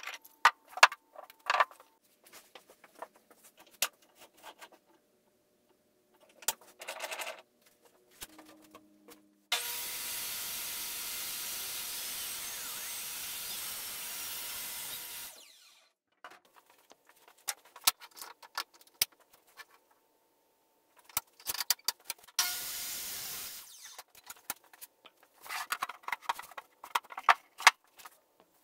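Woodworking shop sounds: scattered knocks, clicks and short bursts of tool noise, with a steady hiss lasting about six seconds in the middle.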